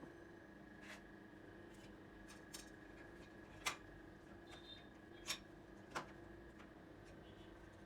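Scattered light clicks and taps of hands working on a mini PC's case and memory parts, about five in all, over a faint steady hum.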